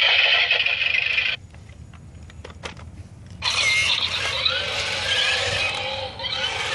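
Thinkway Toy Story RC toy car running its play mode by itself: a burst of electronic noise from the toy, a pause of about two seconds with a few clicks, then a longer run of sound effects with many rising and falling pitches.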